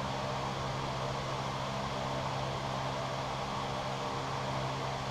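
A steady low hum under an even hiss, such as a running motor or fan makes.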